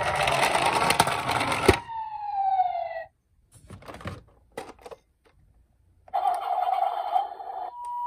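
Toy ambulance rolling on a tabletop with a whirring siren tone, which falls in pitch and dies away about two to three seconds in. Then plastic toy cars clatter in a cardboard box, and about six seconds in a toy ambulance's electronic siren starts with a steady tone.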